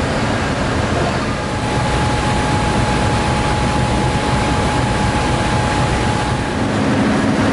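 Steady rumble and hiss of a diesel passenger train standing at a station platform. A thin steady whine sounds through the middle stretch, and a lower hum comes in near the end.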